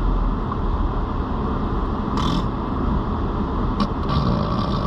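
Steady road and engine rumble inside a moving car's cabin. A brief hiss comes about two seconds in, and a longer one near the end.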